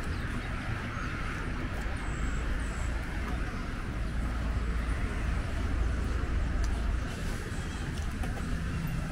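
Open-air urban ambience: a steady low traffic rumble that swells for a few seconds in the middle, under a soft hiss, with a couple of faint high chirps a few seconds in.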